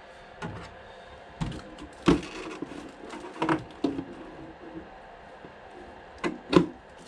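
Scattered knocks, taps and rustles from handling an RC car and its packaging, with the sharpest knocks about two seconds in and near the end.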